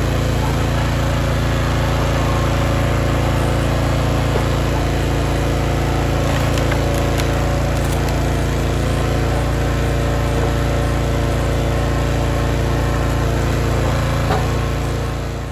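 Small gasoline engine of a Wolfe Ridge log splitter running steadily, running well.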